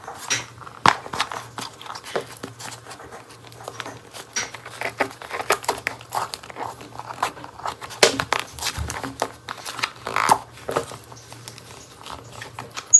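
Shipping envelope being handled and picked open by hand: irregular crinkling and scratching of the packaging with many sharp little clicks.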